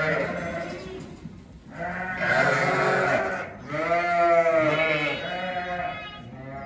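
A flock of sheep bleating: about four drawn-out calls one after another, some overlapping.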